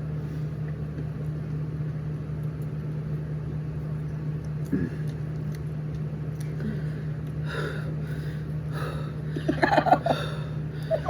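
A steady low hum runs throughout. Short voice sounds break in from about two thirds of the way through, gasps or noises at the spicy taste.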